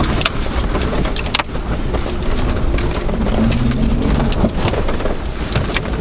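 Jeep Wrangler driven over a rough, muddy trail, heard from inside the cabin: a steady low engine rumble with scattered knocks and rattles as it bounces over ruts. The engine revs up briefly a little past the middle.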